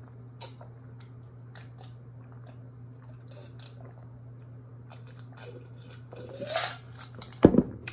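A steady low hum with faint scattered clicks, then a rushing sound that rises in pitch about six and a half seconds in, followed by a couple of loud, sharp knocks near the end.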